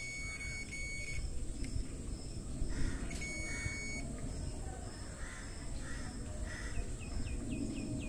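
Digital multimeter's continuity beeper sounding as the probes touch the ceiling fan coil leads: a steady high beep for about the first second, then a second one of about a second, around three seconds in. The beep signals a low-resistance, continuous connection.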